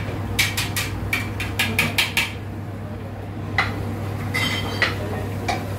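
Cutlery clinking against plates at a meal: a quick run of clinks in the first two seconds, then a few single clinks, one with a short ring, over a steady low hum.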